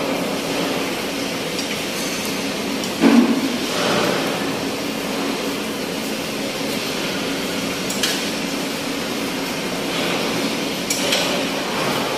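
Steady working noise with a low hum, broken by one dull knock about three seconds in and a few light metallic clinks later on.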